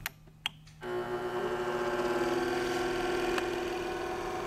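Two sharp clicks, then about a second in the Dynabrade 64900 belt sander's 1 hp 90-volt DC motor starts and drives the belt, running with a steady hum of several even tones.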